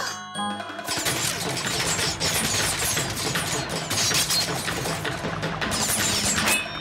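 Cartoon action soundtrack: busy music with a rapid run of sharp hits and whooshes as ninja throwing stars fly. It starts about a second in and cuts off near the end.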